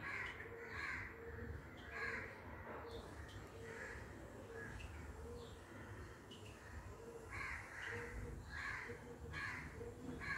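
Birds calling, short calls repeated over and over at an uneven pace, over a steady low background hum.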